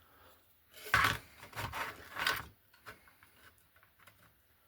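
Handling of a model wagon kit's parts: short scrapes and knocks as styrene rod and the wagon body are moved on the workbench, starting about a second in, then a few faint taps.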